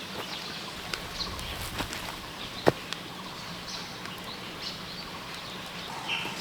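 Forest ambience with small birds chirping here and there. A few sharp clicks or knocks come through, the loudest a little under halfway in, over a faint steady low hum.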